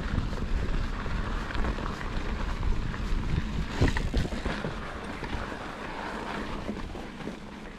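Mountain bike rolling over dry dirt singletrack: knobby tyres crunching on gravel and rocks while the bike rattles, with wind on the microphone. A sharper clatter comes about four seconds in, and the rattling eases over the last few seconds.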